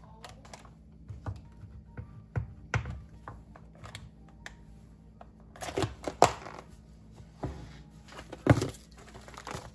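Plastic bento lunch box being packed: soft knocks and crinkles as snack packets and food are set into the container. A few sharper clicks and knocks follow as the lid is pressed shut and latched, the loudest about eight and a half seconds in.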